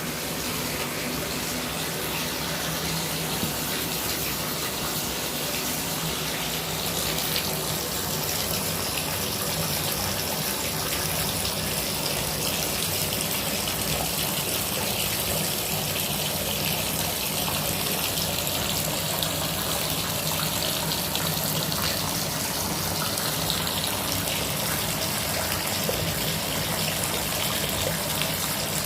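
Water running steadily from a tap, a constant splashing gush that neither starts nor stops.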